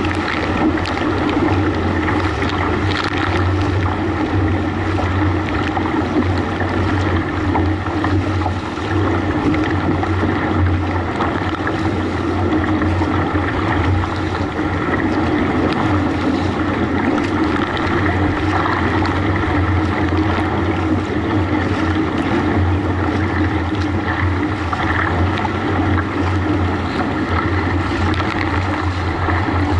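Motorboat engine running with a steady low drone a few metres ahead, mixed with rushing, splashing water from its wake and the paddle strokes around a kayak's hull.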